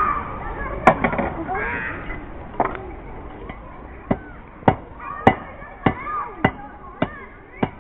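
Blacksmith's hammer striking hot iron on the anvil while forging a nail: a couple of single blows, then a steady run of strikes about every half second or so.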